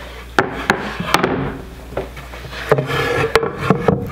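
Oiled wooden cutting boards being wiped down with a rag and shifted on a wooden table: the cloth rubs over the wood, and several sharp knocks come as boards are lifted, set down and bump together.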